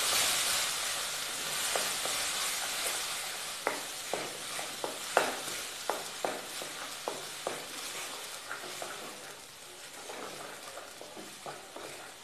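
Thick onion-tomato-cashew paste sizzling in hot oil in a steel kadhai, the hiss slowly fading. A wooden spatula stirs it, with a run of sharp taps and scrapes against the pan a few seconds in.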